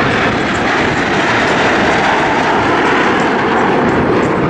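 Formation of BAE Hawk T1 jet trainers flying past, their jet engines making a loud, steady noise.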